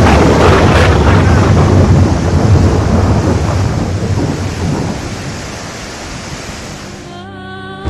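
Muddy flash-flood torrent rushing through a river channel: a dense, loud roar of churning water with a heavy low rumble, easing somewhat after the first few seconds. Near the end it gives way to steady musical tones.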